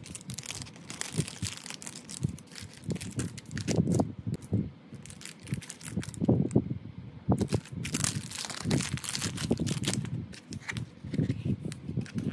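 Clear plastic wrapping on a boxed photo card set crinkling and crackling in irregular bursts as it is handled and unwrapped by hand, with soft knocks of card and box between.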